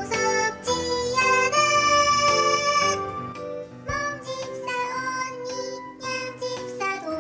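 Background music with a melody.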